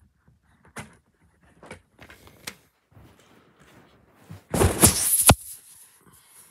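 Plastic DVD case being handled and opened: a few light clicks, then a louder stretch of scraping and rattling about four and a half seconds in that ends in a sharp snap.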